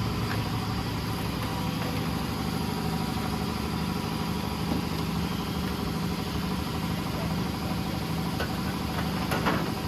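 An engine idling steadily, a constant low, even hum with no change in speed.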